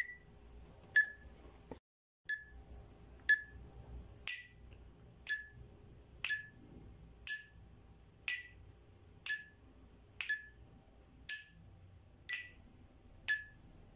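Metronome ticking steadily at about one click a second, each click a short, sharp pitched tick.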